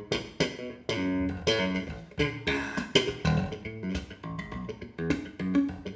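Jazz-fusion music led by plucked bass guitar and guitar, with many sharp note attacks, played back through Gauder Akustik Capello 40 bookshelf loudspeakers and picked up by a microphone in the room.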